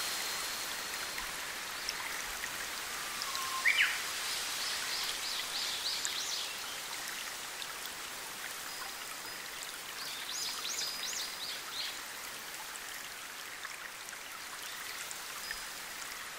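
Steady rush of a forest stream running over small rocky cascades. A bird gives one sharp call a little under four seconds in, then sings two short phrases of quick high repeated notes, about five and ten seconds in.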